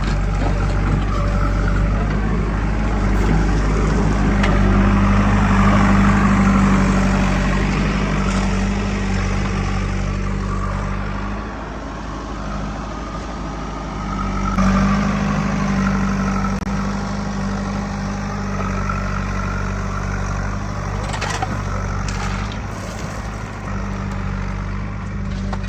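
Heavy diesel engine of working machinery running steadily. It eases off about eleven seconds in and picks up again around fourteen and a half seconds, as under changing load.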